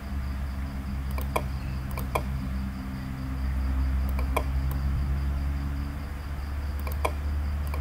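Computer mouse clicks, several of them in quick pairs like double clicks, over a steady low electrical hum and a faint high whine.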